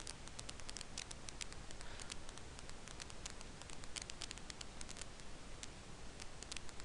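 Irregular light clicks, several a second at times, over a steady low hiss: a computer mouse and keyboard in use.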